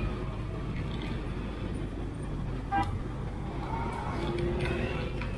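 Street traffic noise heard from a moving scooter behind a bus and motorbikes: a steady low road rumble, a short sharp click about three seconds in, and a brief horn toot about four seconds in.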